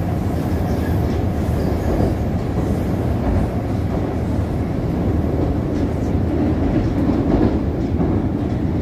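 Moskva-2020 metro train running, heard from inside the passenger car: a steady, loud rumble of wheels on rails.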